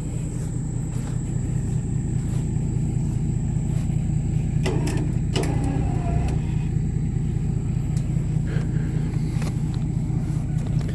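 Backhoe engine running steadily under load while it is moved up onto the trailer, with two short knocks about halfway through.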